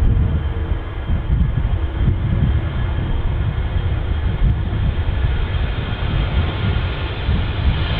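Jet airliner engine noise: a steady low rumble with a hiss above it, growing brighter near the end as the aircraft draws closer.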